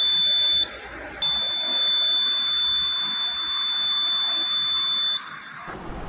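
Piezo buzzer wired to a PIR motion sensor sounding a steady high-pitched tone as the sensor detects movement. It cuts out for about half a second just under a second in, then sounds again for about four seconds before stopping.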